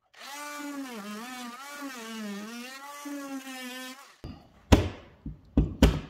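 Power tool cutting into drywall, running with a steady whine that dips and recovers in pitch as it is pushed into the cut, stopping about 4 seconds in. Then a few sharp knocks and cracks, the loudest near the end, as the cut-out drywall is worked loose.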